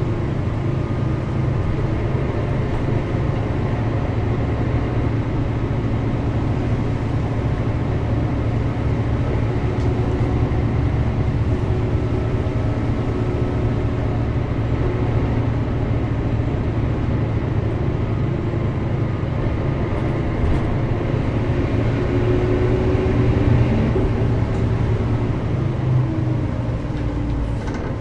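Mercedes-Benz O405GN² articulated bus running, a steady low engine drone with slight shifts in pitch.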